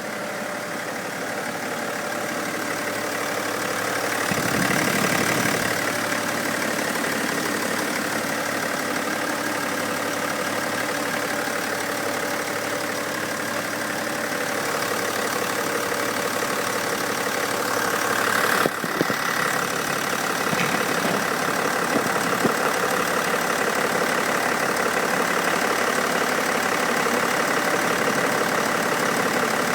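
BMW X5 engine running, with a whistle over the engine note: the noise the owner is documenting. It gets louder for a moment about four seconds in, and a single sharp click comes a little past halfway.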